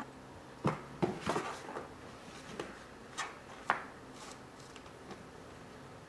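A cat climbing into a cardboard box and moving about inside it: a run of knocks and scuffs on the cardboard, bunched in the first two seconds, then a few more, the sharpest nearly four seconds in.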